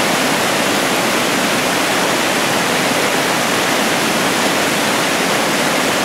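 Fast, shallow salmon creek rushing over rocks: a steady, loud wash of running water.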